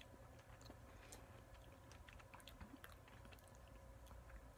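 Faint chewing of a piece of hazelnut milk chocolate, with scattered small crunches from the hazelnut bits.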